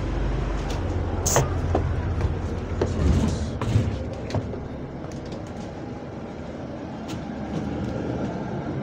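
Running noise of a double-decker bus heard from inside: a low rumble, heavy for the first four seconds and then easing, with a few sharp knocks and clicks between about one and four seconds in.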